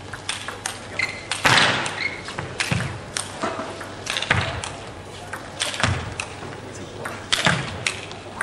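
Table tennis rally: the ball clicking off the rackets and table in quick, irregular succession, with heavier thuds of the players' footwork on the court floor.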